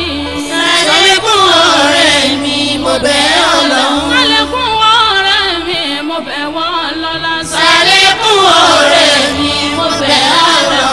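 A woman singing an Islamic devotional song in long, winding melismatic lines, with steady low bass notes underneath.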